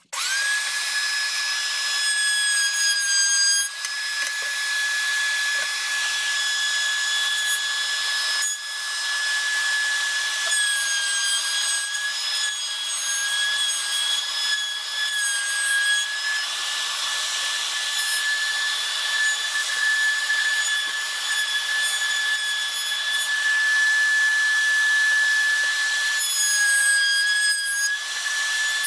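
Table-mounted wood router running, edge-routing a wooden board: a steady high whine that starts suddenly and dips briefly in pitch a few times.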